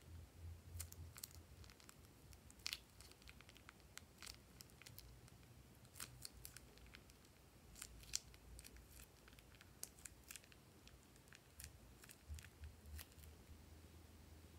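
Faint, scattered crinkles and sticky clicks from a plastic piping bag being squeezed, blue glossy slime pouring out of it onto slime in a dish, over a faint low hum.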